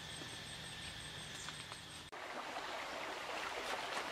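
Outdoor ambience with a steady hiss of running water from a stream. About two seconds in the background changes abruptly to a slightly louder, denser rushing with faint ticks.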